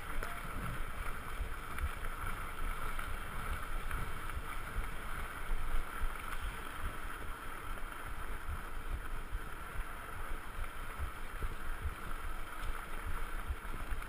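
Wind and rolling noise from a mountain bike ridden over a dirt track, picked up by a rider's action camera: a steady hiss with frequent small low thumps from the bumps.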